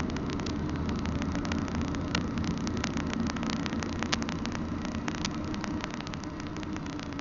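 Steady low rumble from a car driving alongside a rolling double-stack container train, with scattered sharp clicks throughout.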